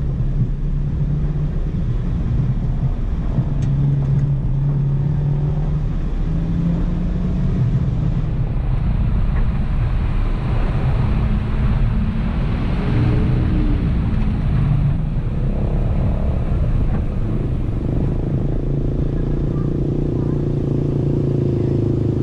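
Toyota Tacoma pickup's engine running as the truck drives slowly over a rocky dirt track, heard from a camera on the hood. The engine note shifts with the throttle and rises and falls briefly about halfway through as the truck goes over a gravel hump.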